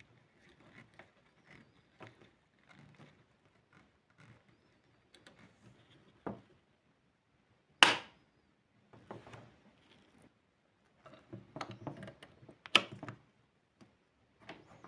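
Small parts and tools being handled on a work surface: scattered light clicks, taps and scrapes, with a sharp knock about eight seconds in and another near thirteen seconds.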